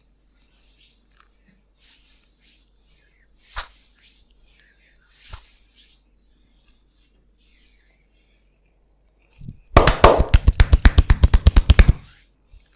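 Hands slapping in a rapid percussive massage stroke, more than a dozen sharp slaps a second for about two seconds near the end. Before it come soft rubbing of hands on skin and two single clicks.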